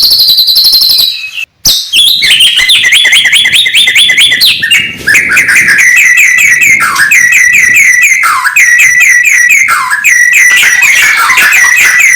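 White-rumped shama (murai batu) singing loudly: a long, fast stream of quick repeated whistled notes and trills, with a brief break about a second and a half in.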